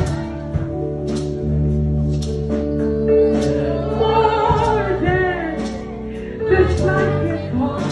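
Gospel worship music: a voice singing over long, held instrumental chords.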